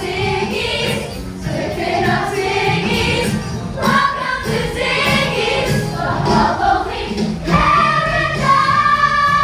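A stage-musical ensemble of young performers singing together over music, ending in a long held note.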